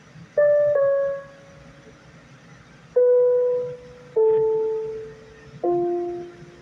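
Single notes played one at a time on a keyboard: five notes in a slow, mostly descending line, two in quick succession near the start and then spaced out, each struck sharply and dying away.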